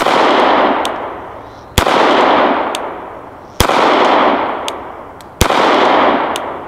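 Suppressed VZ 61 Skorpion semi-automatic pistol in .380 firing four single shots about two seconds apart, each followed by a long fading echo.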